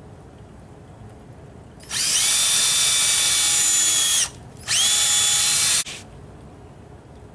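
Cordless DeWalt drill driving a screw into a wooden table frame: a steady motor whine of about two and a half seconds, a brief stop, then about another second of whine to finish the screw.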